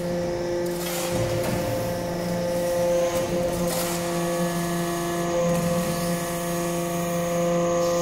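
Hydraulic metal-chip briquetting press running, its pump motor giving a steady hum with even overtones over a wash of machine noise.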